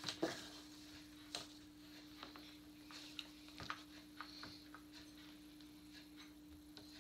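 Faint, scattered clicks and light rustles as a plastic animatronic spider prop and its wrapping and cardboard base are handled, over a steady low hum.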